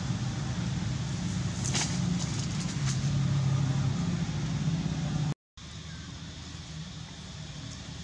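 Steady low outdoor background rumble with a few faint rustles about two seconds in; it cuts out for a moment a little past halfway and carries on quieter after.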